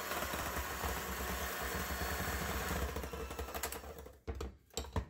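Electric hand mixer running steadily, its beaters whipping a thick butter, sugar and egg batter in a glass bowl; it stops about four seconds in, followed by a few short knocks.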